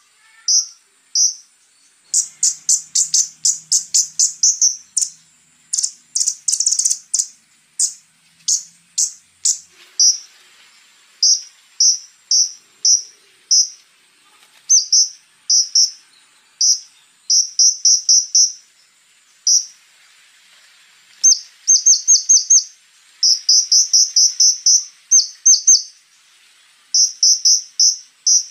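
Scarlet-backed flowerpecker (konin) calling in rapid bursts of short, high, thin chips, several a second, with brief pauses between bursts. A denser run of sharp, clicky notes comes in the first third. A faint steady high hum, like an insect, lies underneath.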